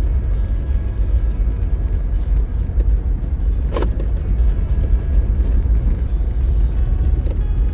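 Off-road vehicle driving along a dirt trail: a steady, heavy low rumble of engine and tyres, with one short sharp sound about four seconds in.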